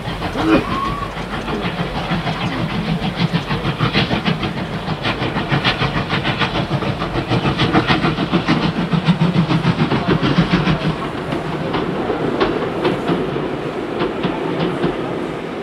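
Model trains running on an exhibition layout, their wheels clicking over the rail joints in a continual stream of small clicks over a steady background rumble.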